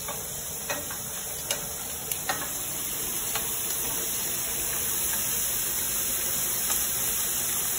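Shrimp sizzling steadily in a hot skillet, with a handful of light clicks of a utensil against the pan as the shrimp are flipped over one by one.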